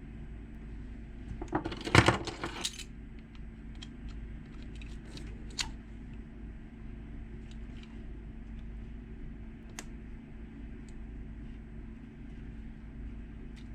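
Small metal lock-cylinder parts clinking and rattling together in a quick cluster of clicks about two seconds in, followed by a few scattered light ticks as the parts are handled while wafers are swapped to re-key the lock.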